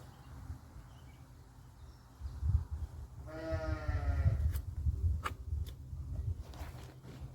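A single bleat from a farm animal, a wavering pitched call about a second long, heard over a steady low rumble, with a few sharp clicks afterwards.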